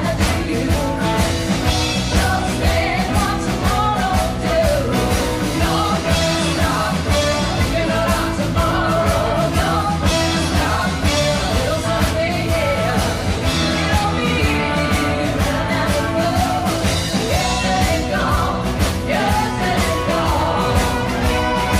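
Rock and roll song with a singer over a band and a steady drum beat.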